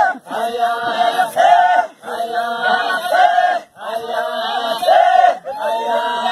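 A group of Maasai singing a chant together for the adumu jumping dance. Several voices sing short repeated phrases, with a brief break about every two seconds.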